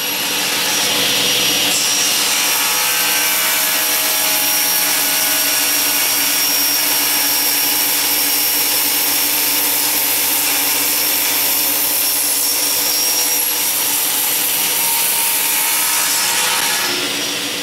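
Table saw running an 80-tooth non-ferrous carbide-tipped blade (Freud Diablo), cutting dry through a solid 6061 aluminum block. The noise is loud and steady with a lot of high hiss; it fades in at the start and fades away near the end.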